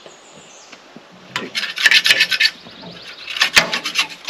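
Rapid scrubbing strokes on the pitch-coated blade-guide parts of a portable sawmill, as the pitch is cleaned off. The strokes come in two runs, the first starting about a second and a half in and the second near the end.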